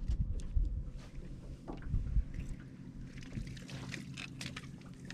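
Knocks and thumps on a boat deck as a landing net is grabbed and handled, over a steady low hum. About three seconds in there is a run of quick splashing and crackling as the net goes out over the water to land a hooked bass.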